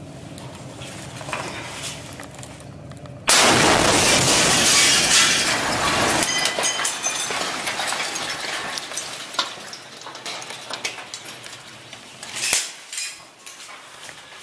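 A tank round strikes the apartment block close to the camera: a sudden loud blast about three seconds in, followed by several seconds of glass shattering and debris rattling down, slowly fading. A few separate sharp knocks and crunches near the end.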